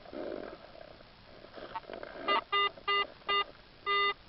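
Handheld metal-detecting pinpointer probe beeping in short electronic tones, five beeps in the second half, signalling metal close to its tip in the dug soil. A brief rustle of soil being moved comes just before.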